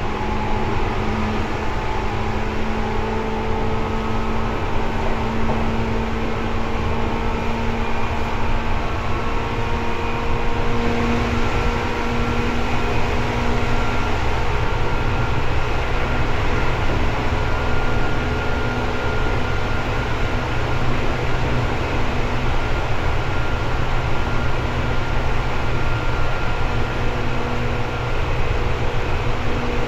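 Seibu 2000 series electric train running at speed, heard inside the car: a steady loud rumble of wheels and running gear with a few steady electrical hum tones from the traction equipment.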